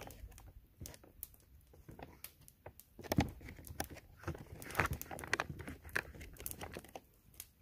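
Foil freeze-dried meal pouch crinkling as it is handled, in irregular soft crackles and clicks, a little louder twice in the middle.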